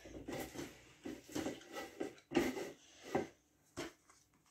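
Silicone pastry brush spreading soft butter inside a plastic Tupperware Microcook dish: a series of short, irregular brushing and scraping strokes that die away after about three seconds, with one more brief touch near the end.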